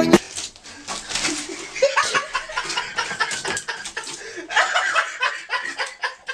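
People chuckling and laughing softly, with a few murmured words, in short fits about two seconds in and again near the end.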